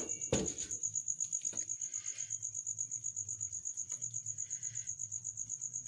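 A cricket chirping steadily in a fast, even pulse, high-pitched. Just after the start comes a single metallic knock of the steel ladle against the aluminium karahi, with faint scrapes of the ladle after it.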